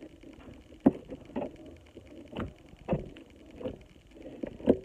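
Hands squishing and kneading butter slime with clay mixed in, close to the microphone: irregular wet pops and clicks, about six louder ones scattered through.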